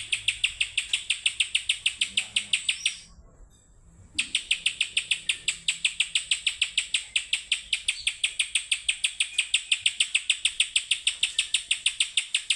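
Pijantung gunung (spiderhunter) calling in full voice: a long, fast, even run of sharp high chip notes, about six a second, broken once by a pause of about a second.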